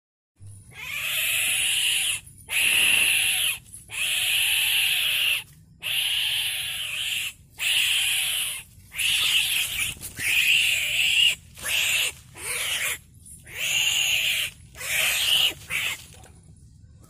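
Greater coucal (jemudu kaki) in the hand, giving about a dozen harsh, rasping calls in a row, each about a second long.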